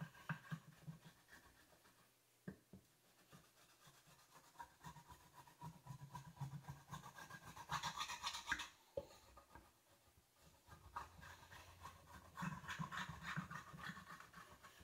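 Faint back-and-forth scraping of a wax candle rubbed along a wooden drawer rail, in runs of quick strokes with pauses between. The wax is being laid on the rail so the drawer slides easily.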